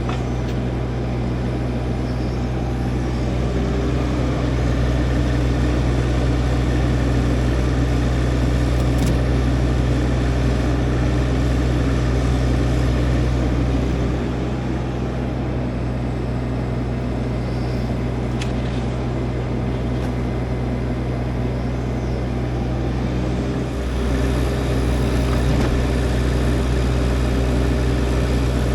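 A low-pitched engine running steadily, with brief small dips in level about halfway through and again near the end.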